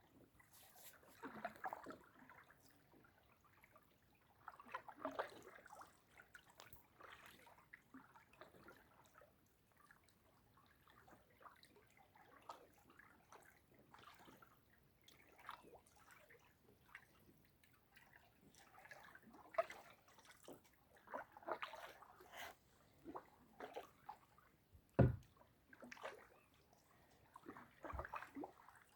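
Kayak paddle dipping and splashing, water dripping and sloshing in faint, irregular strokes every few seconds, with one sharp knock near the end.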